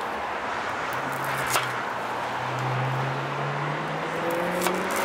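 A motor vehicle's engine, its pitch rising slowly, over a steady hiss, with a sharp click about one and a half seconds in.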